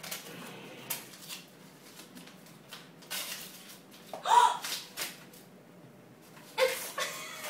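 Wrapping paper being ripped off a present and crinkled by hand: a run of short tearing and rustling crackles. A brief vocal exclamation cuts in about halfway through, and another short one near the end.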